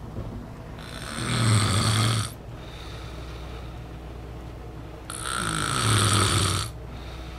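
A sleeper snoring: two long, rattling snores about four seconds apart, each lasting about a second and a half.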